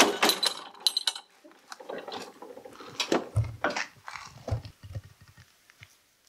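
Irregular clattering knocks and rattles, with a few dull low thumps between about three and a half and five seconds in, dying away toward the end.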